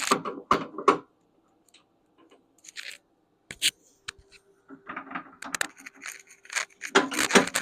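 Hand tools and metal parts clinking and scraping in short, irregular knocks during hands-on work on a skid steer, with quicker clinks crowding together in the second half.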